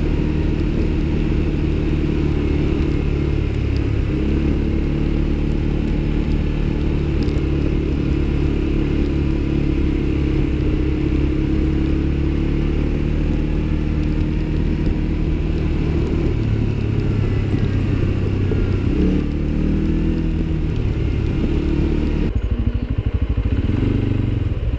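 ATV engine running at a slow trail pace, its engine note shifting several times as the thumb throttle is worked. The sound changes abruptly about three seconds before the end.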